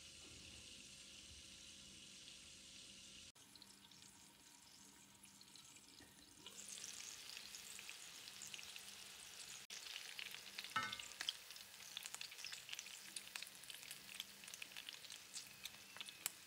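Food frying in a pan: a faint steady hiss at first, then from about six seconds in a louder sizzle crackling with many small pops. A brief squeak comes about two-thirds of the way through.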